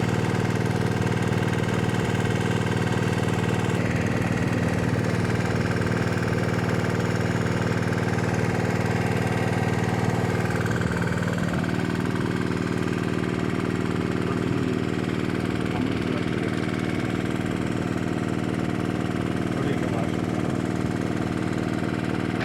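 Electric heat gun running steadily with a motor whine as it shrinks heat-shrink sleeves onto heavy power-cable cores. Its tone shifts slightly about halfway through.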